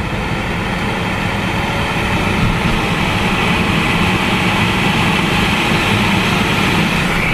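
Newly replaced cabin blower motor of a 2007 Mercedes-Benz S550 (W221) running steadily on a high fan setting: a steady rush of air with a low hum. The new blower motor and resistor have the fan working again.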